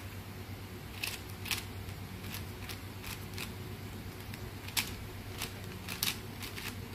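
Plastic 4x4 Rubik's cube being turned by hand, its layers clicking into place in short irregular snaps, about eight over a few seconds, over a steady low hum.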